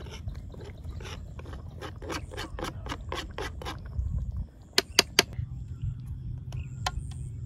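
Kitchen knife scraping chopped herbs off a plastic cutting board in quick repeated strokes, about three a second, over a low steady rumble. Then, about five seconds in, a steel ladle strikes the steel kadhai three times in sharp, loud clinks, with one more lighter clink near the end.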